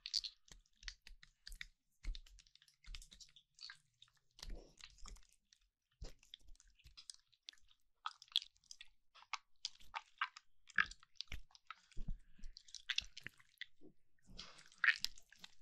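Slime being squished and stretched by hand: soft, irregular wet clicks, pops and crackles, growing denser and squishier near the end.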